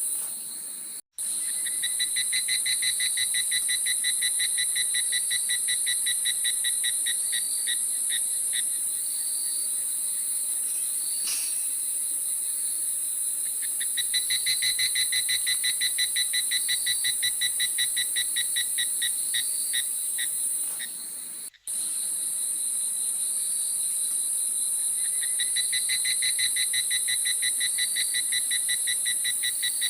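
Jungle insects calling: a steady high-pitched drone under a rapid pulsing trill that sounds in three spells of several seconds each. The sound cuts out briefly about a second in and again about two-thirds of the way through.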